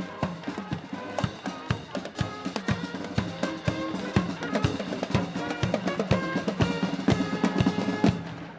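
Marching wind band playing, brass over a busy drum line of bass drum and snare. The music cuts off suddenly near the end.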